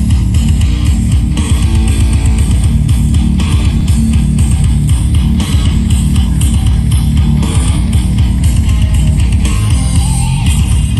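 Loud music with heavy bass and guitar playing through a JBL event sound system, the low end strong and the level steady.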